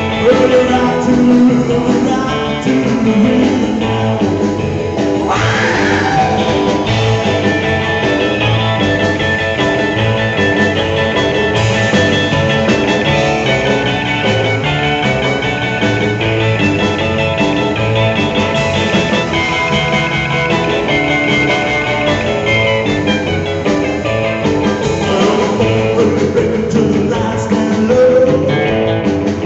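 Live rock and roll band playing: electric guitars and drums, with singing.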